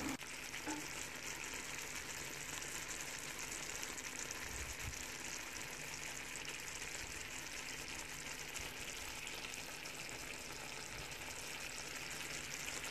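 Hilsa steaks in mustard sauce simmering in a pan, the sauce sizzling and bubbling with a faint, steady hiss.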